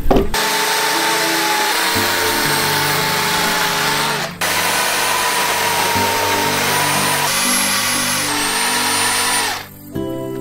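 Handheld power tool running on timber: a dense cutting noise with a steady high motor whine, in two runs with a short break about four seconds in. Soft background music plays underneath.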